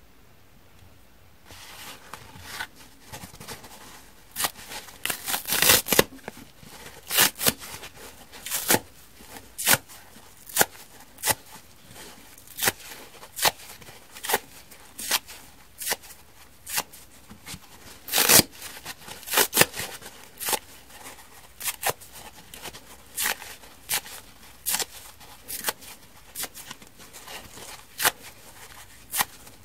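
Soft foam kitchen sponge torn apart by hand: a run of short, crisp rips and crackles, irregular and a few each second, starting a second or two in.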